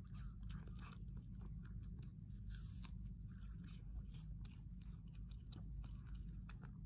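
Red panda chewing and crunching food, a run of irregular crisp crunches and bites, over a steady low rumble.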